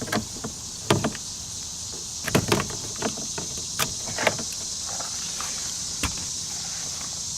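Plastic clicks and rattles of electrical connectors being unplugged from a Ford F-150 door panel: a handful of sharp clicks spread over several seconds, over a steady high hiss.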